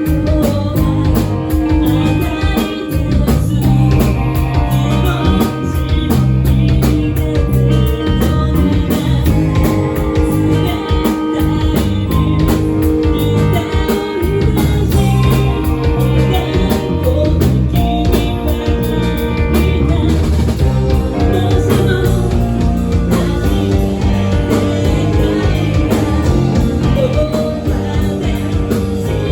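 Rock band playing live: a singer over guitar and drum kit, loud and continuous.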